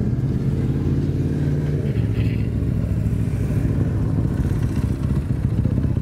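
An engine running at a steady speed, a low drone that shifts slightly about two seconds in.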